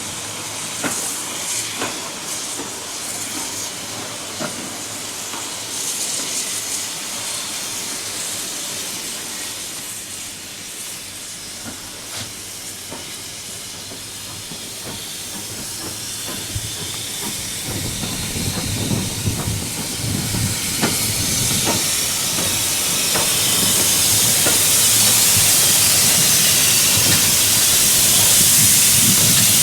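Steam locomotive hissing steam, growing louder through the second half, with low rumbling underneath.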